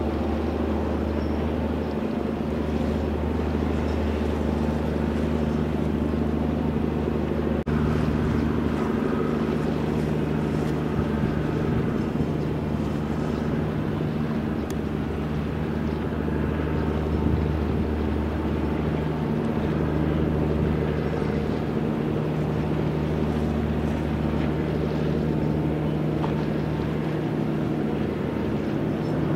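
Ship's diesel engine running steadily, a low droning hum with a throb that swells and fades slightly.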